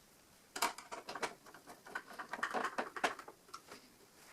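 A quick, irregular run of light clicks and rustles lasting about three seconds.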